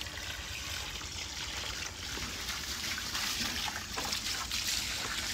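Water from a garden hose running steadily and splashing over a basket of small fish as they are rinsed and stirred by hand.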